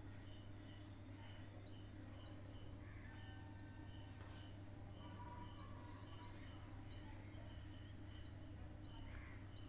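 Faint background chirping, a high chirp repeating about two or three times a second with other short high notes, over a steady low hum.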